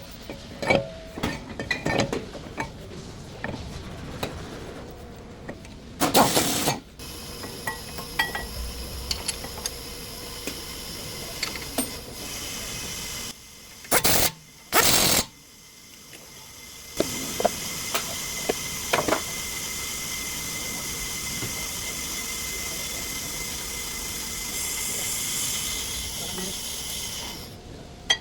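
Hand-tool clinks and knocks during a front brake job. Then two short hissing blasts about a second apart near the middle, and a long steady hiss with a faint whine that lasts about ten seconds before it cuts off near the end.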